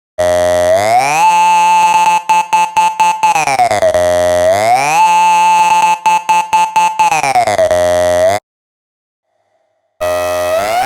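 Synthesized 'robot rave' sound effect: an electronic synth tone that slides up, holds, and slides back down in pitch, chopped into rapid stutters while it holds the high note. It cuts off about eight seconds in and starts again low near the end.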